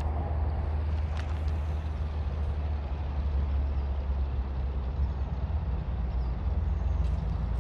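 Union Pacific diesel-electric locomotive approaching at low speed, its diesel engine a steady low rumble.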